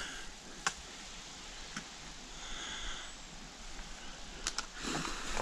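A hiker breathing, with a soft breath about halfway through and heavier breathing near the end, and a few faint clicks.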